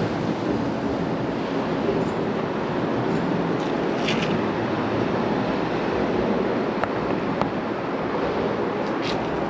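Steady rumble of city traffic and idling heavy engines around a construction site, with a few faint high squeaks.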